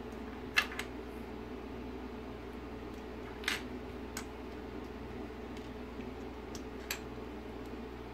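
Scattered sharp clicks of small plastic parts of a speedometer pointer motor being unclipped, handled and set down on a desk, about five in all, over a steady low background hum.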